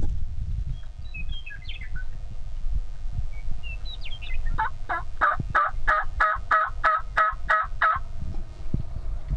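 A turkey yelping: a run of about eleven yelps, about three a second, starting about halfway through and lasting some three seconds. Before it come a few short, high songbird chirps, over a low rumble of wind on the microphone.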